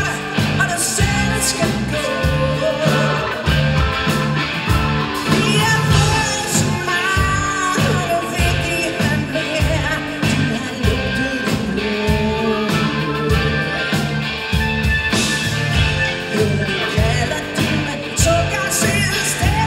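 Live rock band playing with a steady beat: a woman singing lead over electric guitars, drums and keyboard.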